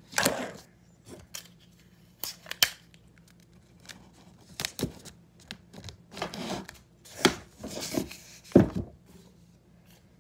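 Clear tape being pulled off the roll and torn in short rips, with paper crinkling and light taps of fingers pressing it down; one louder knock about three-quarters of the way through.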